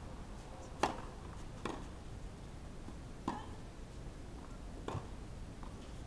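Tennis ball struck by rackets in a rally on a clay court: four sharp pops, the first the loudest, then three more spaced about one and a half seconds apart.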